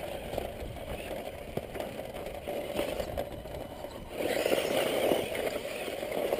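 Electric RC truck driving over loose dirt and gravel: a steady noisy rush with constant crackling, getting louder about four seconds in.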